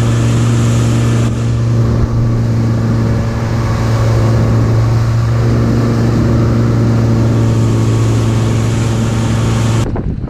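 Suzuki 150 hp outboard motor driving the boat at steady cruising speed: a loud, even drone over the hiss of the wake. It stops abruptly near the end.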